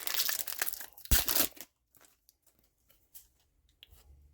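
Foil booster pack wrapper being torn and crinkled in two loud rustling bursts in the first second and a half, followed by faint soft ticks of cards being handled.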